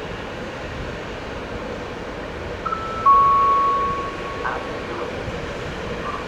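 Intermodal freight train rolling out of a station, with steady running noise; about three seconds in its wheels let out a loud, steady high-pitched squeal on the rails that lasts nearly two seconds and fades, after a brief shorter squeal just before it.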